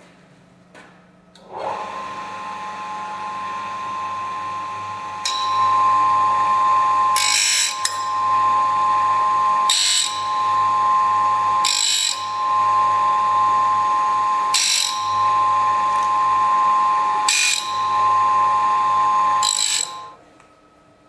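Small electric power tool, used for sharpening saw blades, starts up and runs with a steady high whine. From about five seconds in it runs louder under load, with a harsh grinding burst roughly every two and a half seconds, as the tool grinds the blade. It stops shortly before the end.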